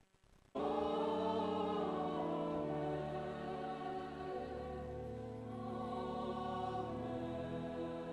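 Church choir singing sustained chords, starting abruptly about half a second in.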